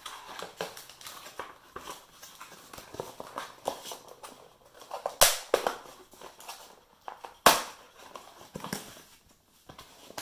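Unpacking a battery charger and its cables from a cardboard box: scraping and rustling of cardboard, cables and plastic, with two sharp knocks, one about five seconds in and one about seven and a half seconds in.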